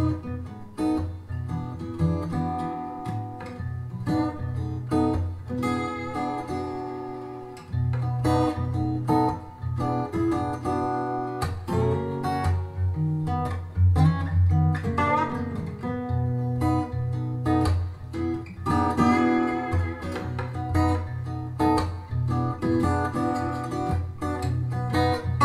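Acoustic blues music with strummed and plucked acoustic guitar over a steady bass line, played back through Audiolab Symbol two-way bass-reflex tower loudspeakers and picked up by a microphone in the room.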